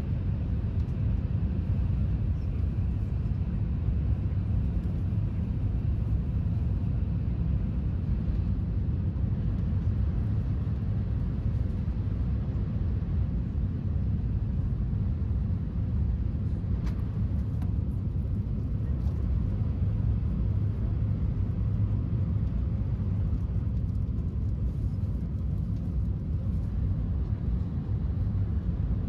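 Steady low rumble of an E5 series Shinkansen bullet train, heard inside the passenger cabin while running at about 315 km/h.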